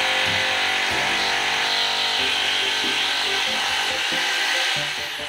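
A power tool running steadily, its even noise over background music with bass notes and short melody notes.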